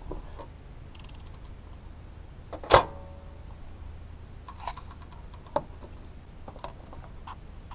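Metal hand tools clicking and clanking against the engine while working on the cam gears: a quick run of small clicks about a second in, one sharp ringing metal clank just under three seconds in, then a few lighter clicks.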